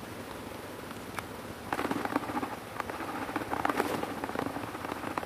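Water in a plastic bucket sloshing and splashing as it is stirred with a stick, starting a little under two seconds in.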